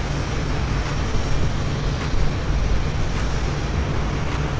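Boeing 747-8's four GEnx turbofan engines, a steady jet noise with a deep rumble underneath, as the airliner rolls along the runway.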